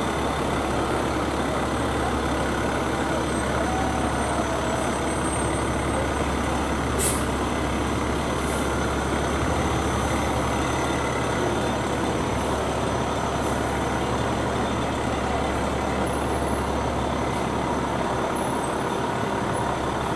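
Fire truck diesel engines running as the apparatus rolls slowly past, a steady low hum with road noise. A short, sharp air-brake hiss comes about seven seconds in.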